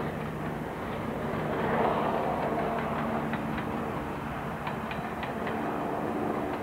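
Diesel locomotive hauling coaches past, its engine running with a steady drone, with a short run of clicks from the wheels over rail joints in the middle.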